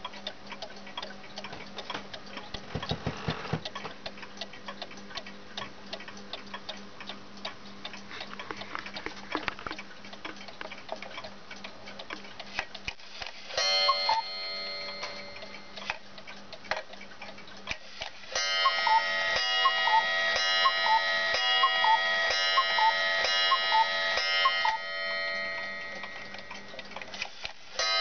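Small cuckoo clock ticking steadily, then striking: one ringing chime about halfway through, followed a few seconds later by a quick run of about a dozen cuckoo calls with ringing strikes, roughly two a second, and another strike near the end.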